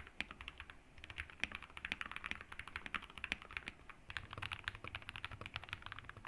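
Fast, continuous typing on a custom mechanical keyboard with lubed linear switches and foam-modded case, with a short pause about half a second in.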